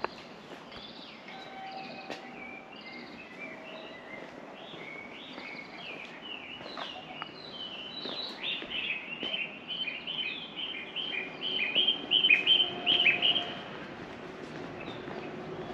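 Songbirds chirping and singing, many short sliding notes, with a fast run of louder calls from about eight to thirteen seconds in.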